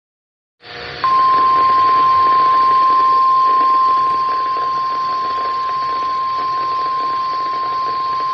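NOAA Weather Radio 1050 Hz warning alarm tone: one steady, unbroken pitch over radio static, starting about a second in. It announces an alert about to be broadcast, here a severe thunderstorm watch.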